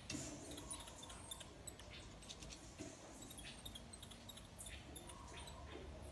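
Baby marmoset giving many short, high-pitched squeaks and chirps at an irregular pace.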